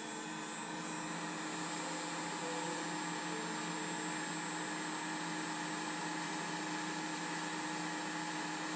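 Hot-air rework gun's blower running steadily with an even hiss while it reflows solder to seat a replacement SMD LED pixel on an LED display module.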